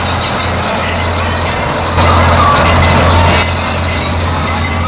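Mack drag truck's diesel engine running steadily with a low rumble, not revving. It gets louder for about a second and a half in the middle.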